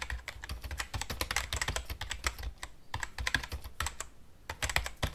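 Computer keyboard typing sound effect: a rapid run of key clicks with a couple of brief pauses, keeping time with on-screen text being typed out.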